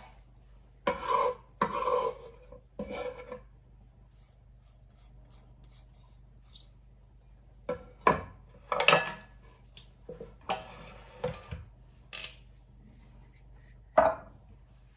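A kitchen knife scraping and tapping in short bursts against a wooden cutting board and a ceramic suribachi bowl as chopped parsley is cleared into the bowl. Near the end, one sharp knock as a wooden pestle is set into the bowl.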